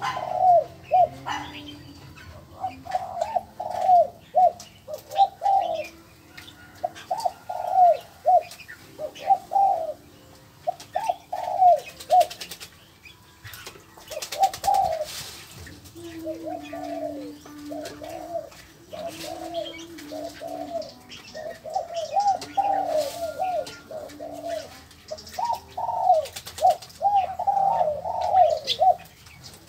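Birds calling: bouts of quick, short, falling notes, several to a bout, repeated with short pauses between bouts.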